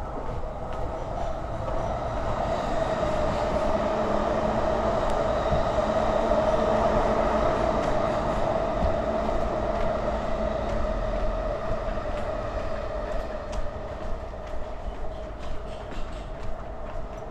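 A train passing on nearby tracks: a steady hum that builds over the first few seconds, peaks about halfway, and fades toward the end.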